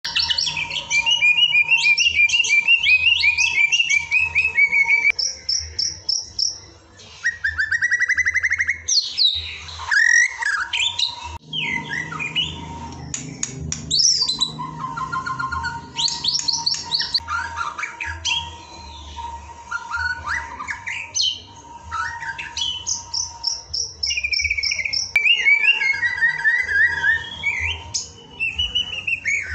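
White-rumped shama singing a long, varied song: fast trills, clear whistles and rising and falling phrases, with short pauses between phrases.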